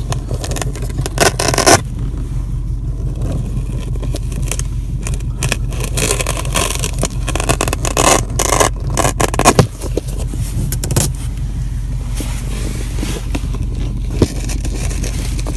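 Car driving on a snow-covered road, heard from inside the cabin: a steady low rumble of engine and tyres, with many short scrapes and knocks over it.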